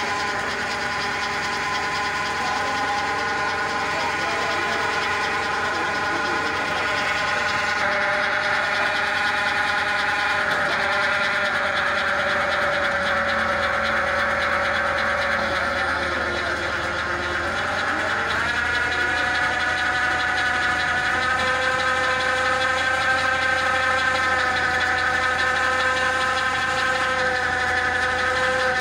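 Massey Ferguson 9500 tractor engine and hydraulic auger drive running steadily as the tractor-mounted auger bores into the ground, with a strong pitched whine. Just past halfway the pitch sags, as if under load, then steps back up and holds.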